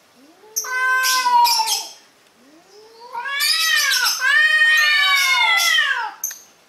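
Two domestic cats in a face-off, caterwauling at each other: a short yowl about half a second in, then a long wavering yowl that rises and falls in pitch, lasting nearly four seconds. The yowling is a threat display between the two cats.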